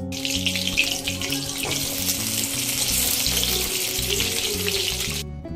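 Chicken pakoras deep-frying in hot refined oil in a kadai: a steady sizzle, over background music.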